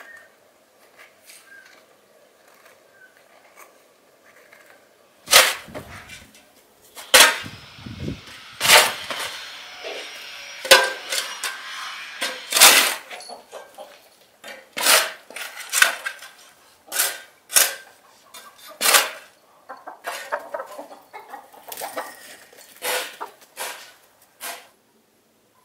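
Repeated sharp knocks and scraping of a long-handled garden tool working dry, stony soil, starting about five seconds in, with chickens clucking.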